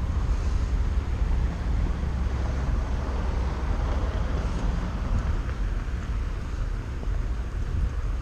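City road traffic heard from a moving bicycle, with wind rumbling on the GoPro's microphone; the traffic noise swells in the middle.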